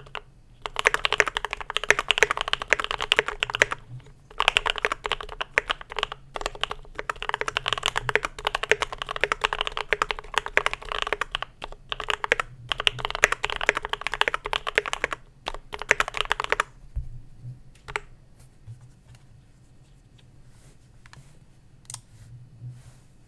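Idobao ID80 mechanical keyboard with lubed Gateron Black Ink v2 linear switches, typed on steadily in long runs with brief pauses for about sixteen seconds, then only a few scattered single keystrokes. Picked up through a cheap webcam microphone.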